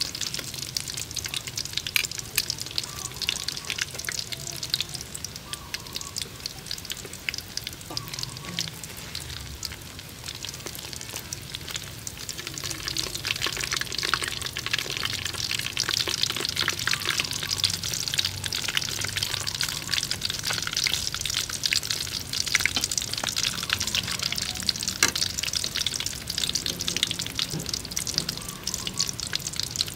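Breaded baby duck eggs (balut) deep-frying in hot oil: a steady crackling sizzle full of small pops, growing louder a little before halfway through.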